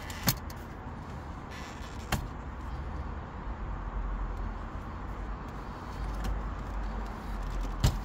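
Sharp clicks of plastic trim as the gear-lever gaiter surround is unclipped from a BMW 535i's centre console and the gear knob is pulled off its shift lever: a loud click just after the start, a smaller one about two seconds in and another loud one near the end, over a steady low rumble.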